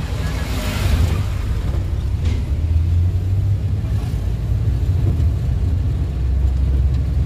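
Engine and road noise of a 1987 Suzuki Super Carry 1000 van on the move, a steady low drone of a smoothly running engine, with a brief swell of noise about a second in.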